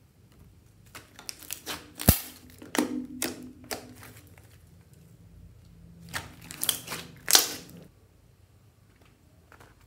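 White slime squished and poked by fingers in a glass dish, giving sticky clicking pops and crackles as air pockets burst. It comes in two flurries, with one sharp pop about two seconds in.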